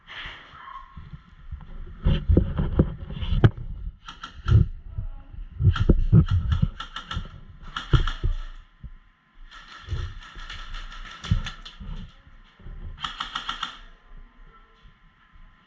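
Airsoft guns firing in rapid rattling bursts, several strings of fast clicks, mixed with scattered knocks and thuds.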